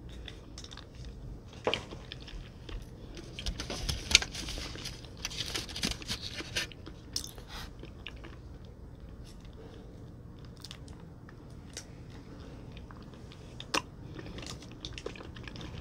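A person chewing and crunching food with their mouth close to the microphone. Crisp crunchy bites come in a cluster in the first half, then softer chewing, then one more sharp crunch near the end.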